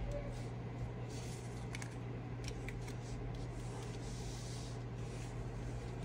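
Playing cards being dealt face up one by one onto a cloth close-up mat: a few faint soft taps and slides over a steady low hum.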